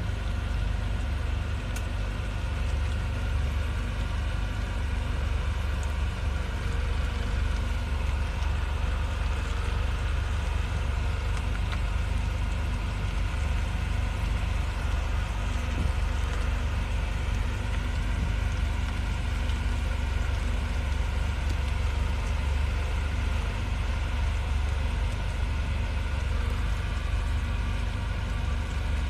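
Steady low rumble of a vehicle engine and road noise as the vehicles crawl along at procession pace.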